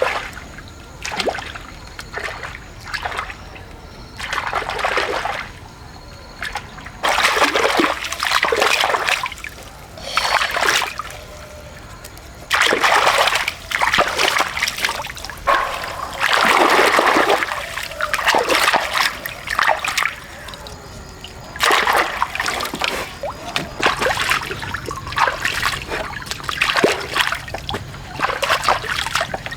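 Water splashing in repeated, irregular bursts, some short and some lasting a second or more, as if something is being worked or thrashing in shallow water.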